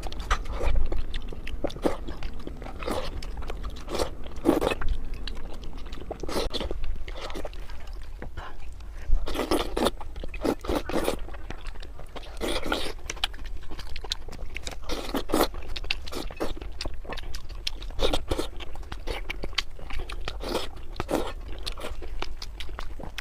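A person biting and chewing food close to the microphone, with irregular crunches and mouth smacks.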